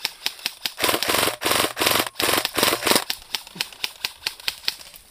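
Airsoft guns firing: a fast, even train of sharp clicking shots, densest and loudest from about one to three seconds in, then thinning out and fading near the end.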